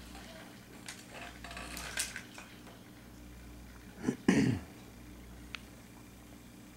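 A faint steady hum with a few small clicks, then about four seconds in a short, loud, cough-like clearing of the throat.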